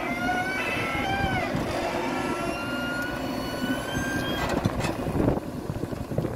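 JCB backhoe loader running under load as it digs and lifts earth: a steady diesel engine rumble with a high whine that dips in pitch about a second in and then holds steady. A few knocks and clatters come near the end.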